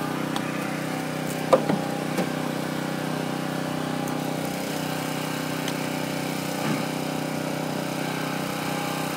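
A vehicle engine idling steadily, a constant low hum, with a couple of light knocks about a second and a half in.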